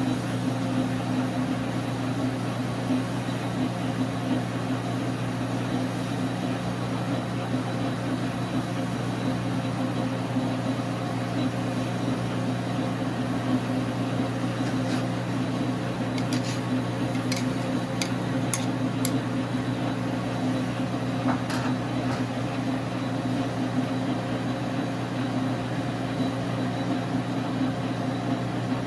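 Dar Sin 12x37 gap-bed metal lathe running steadily under power through a turning pass on 6061 aluminium, a constant motor and gear hum. A few light ticks come through a little past the middle.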